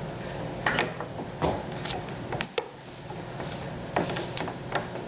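An extension cord being handled and untangled: a series of scattered clicks and knocks as the cord and its plug end knock about.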